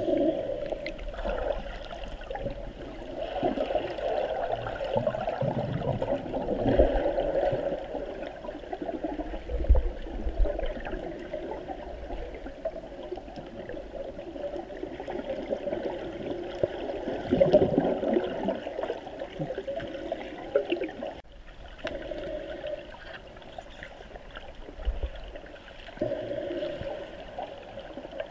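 Muffled gurgling and sloshing water, swelling and easing, with a few low thumps.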